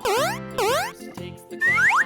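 Cartoon boing sound effects, two quick swoops down and back up, laid over light children's background music, followed near the end by two short rising whistle-like glides.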